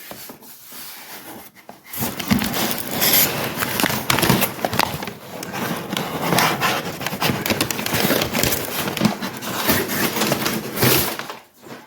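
A parcel's packaging being unwrapped by hand: rustling and crackling of the wrapping. It is light for the first couple of seconds, then dense and busy until it stops shortly before the end.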